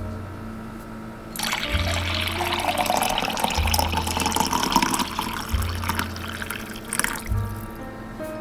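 Hot coffee poured from a drip coffee maker's carafe into a mug, a steady pour starting about a second and a half in and lasting about four seconds, with a short second pour near the end. Background music with a steady bass line throughout.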